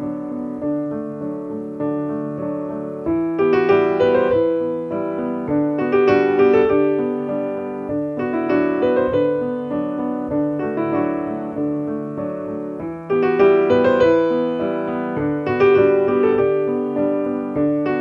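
Background piano music: a gentle piece of struck notes that ring and fade, growing fuller and louder about three seconds in and again about thirteen seconds in.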